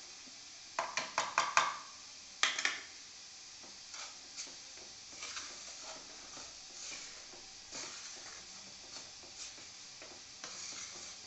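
Wooden spatula stirring and scraping crumbled khoa and powdered sugar around a nonstick frying pan. A few sharp knocks come in the first three seconds, then softer, irregular scraping.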